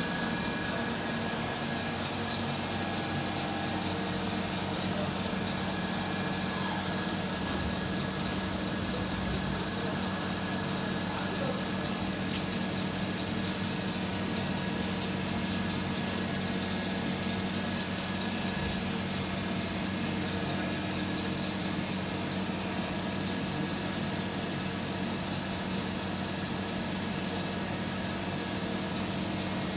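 CNC lathe running steadily: a constant machine drone with a few held tones over an even noise, unchanging in level.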